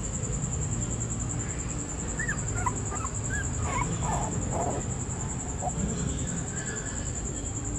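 A young puppy whimpering: a run of short, high squeaky whines, over a low background rumble and a steady high-pitched tone.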